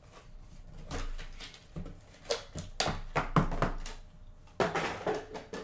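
An empty coffee cup is knocked over on a tabletop: a run of sharp knocks and clatter, then a sudden louder knock near the end, mixed with handling of a cardboard card box.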